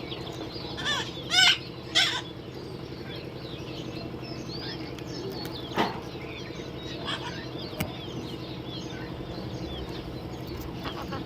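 Several parrots chirping and calling, with three loud, harsh screeches about one to two seconds in and another near the middle, over a steady low hum.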